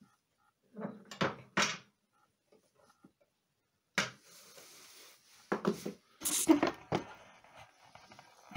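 Cast-iron wood stove doors being shut and latched by hand: a few light metal clanks, a sharp knock about four seconds in, then several louder clunks of the door latches.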